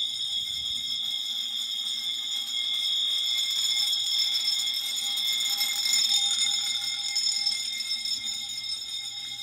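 Fire suppression system's alarm sounding continuously as a steady high-pitched tone: the system is still in alarm after a pre-discharge test and has not yet been reset.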